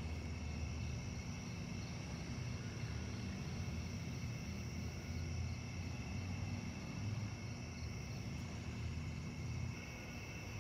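Steady chorus of crickets and other night insects, several high tones held without a break, over a faint low rumble.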